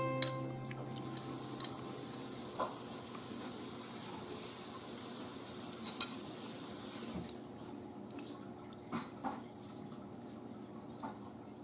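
A metal spoon and chopsticks stirring rice-noodle soup in a ceramic bowl, with scattered light clinks against the bowl and soft liquid sounds.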